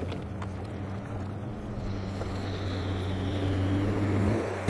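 Jet ski engine passing across the water, a whining drone that grows louder through the second half, its pitch sliding down slightly near the end.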